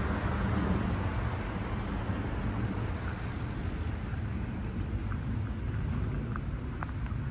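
Steady city outdoor noise: an even low rumble of road traffic, with a few faint short chirps in the second half.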